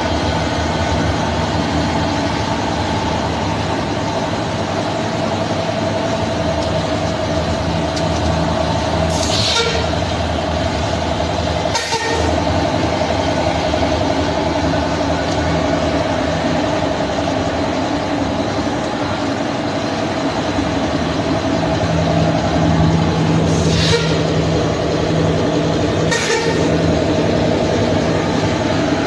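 Egg tray pulp moulding machine running with a steady mechanical hum, broken four times by short sharp air hisses, in two pairs a couple of seconds apart, one pair about a third of the way in and the other near the end.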